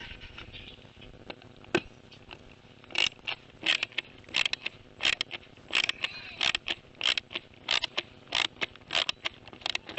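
Close handling noise on a camera's microphone: irregular sharp clicks and scrapes, a few at first and then two to three a second from about three seconds in, as the microphone housing is worked on.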